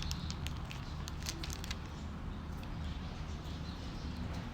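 Light clicks and rustles of a small rubber dust cover and red dot sight being handled, mostly in the first two seconds, over a steady low hum.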